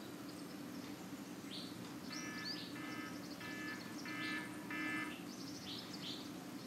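Faint birds chirping in the background over a low steady hum: short high chirps, and in the middle a run of five buzzy repeated calls about half a second apart.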